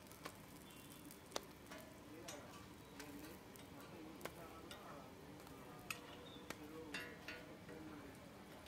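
Layered parathas frying on a flat iron griddle with a faint steady sizzle, broken by sharp irregular clicks of a metal spatula and the breads being flipped against the griddle.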